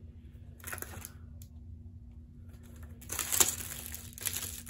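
Small plastic parts clicking as they are handled, then plastic packaging crinkling and rustling from about three seconds in, with a sharp crackle a little later. A faint steady hum runs underneath.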